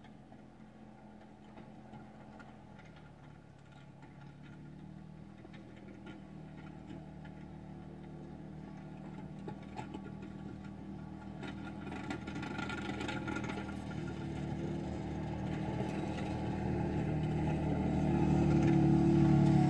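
Side-by-side UTV with a snow plow blade, its engine running and growing steadily louder as it drives closer.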